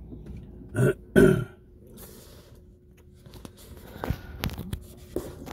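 Two short, throaty sounds from a person's throat, about a second in, followed by a few light clicks and rustles.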